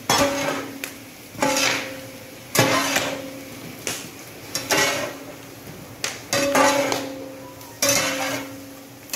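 A long-handled metal ladle mixing chopped vegetables in a large metal cooking pot: about seven strokes, each a scrape against the pot that leaves it ringing with a low hum.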